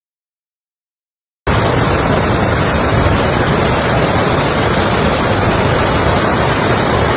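About a second and a half of dead silence, then a loud, steady rush of fast-flowing floodwater cuts in abruptly and carries on unbroken.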